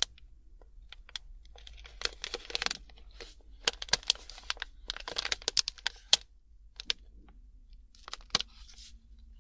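Plastic single-serve pouch of mixed nuts and dried fruit being torn open along its tear notch. It crinkles and crackles in several short bursts.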